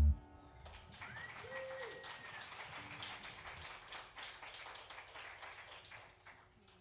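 The band's final chord cuts off sharply, then a small audience claps, thinning out and fading away, with a brief cheer about a second in.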